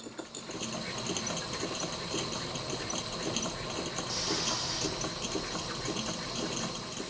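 Model steam engines running on live steam from a small vertical boiler: a steady hiss with fast, light rhythmic ticking. A brief burst of louder steam hiss comes about four seconds in.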